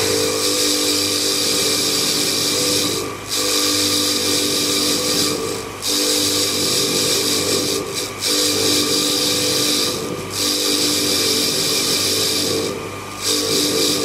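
Bench-mounted wire wheel spinning against a steel mesh microphone grille: a steady motor hum under a loud scrubbing hiss, dipping briefly five times.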